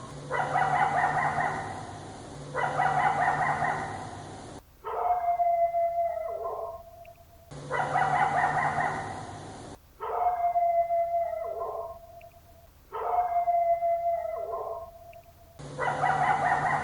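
Yorkshire Terrier howling: a string of about seven short howls, each a second or two long, several holding one wavering note before dropping away. The background hiss changes abruptly between some howls, as from several recordings joined together.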